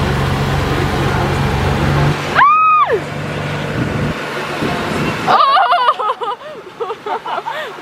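Boat motor running steadily, broken off about two seconds in by a single loud, high whoop that rises and falls. Later the motor is gone and voices shout and call out.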